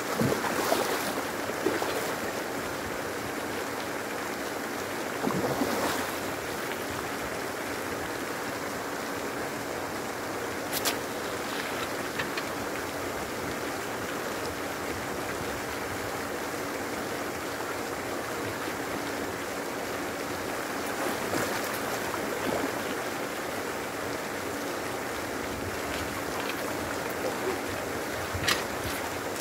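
Steady rushing splash of a pond surface aerator spraying water, with a faint motor hum under it. A few brief louder splashes come through, the first right at the start, as a hooked fish thrashes at the surface near the bank.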